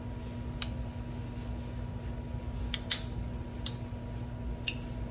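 A metal spoon stirring an oily chopped-herb mixture in a small ceramic bowl, clicking lightly against the bowl about five times at uneven intervals.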